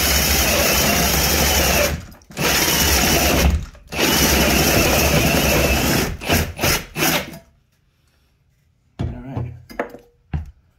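Power drill spinning a Diablo hole saw through wood, running steadily in three long runs broken by two brief stops, then a few short bursts before it stops about seven seconds in. A few knocks and clatter follow near the end.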